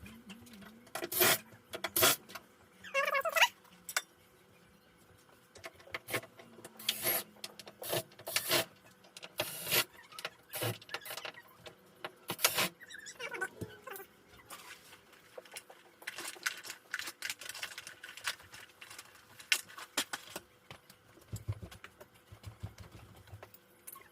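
Irregular clicks, knocks and rattles of screws, tools and the plastic back case being handled as a flat-screen LED TV is taken apart.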